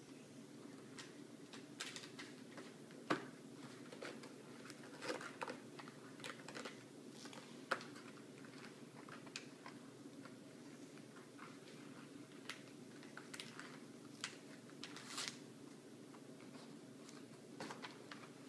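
Faint scattered scratches, taps and paper rustles from a felt-tip marker on a workbook page and children's hands handling paper, over a low steady room hum.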